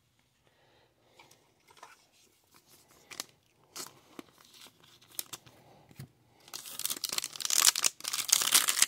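A Topps Stadium Club Chrome trading-card pack's crimped wrapper crinkling and crackling loudly as it is torn open by hand. It starts about two-thirds of the way in, after a few faint handling clicks.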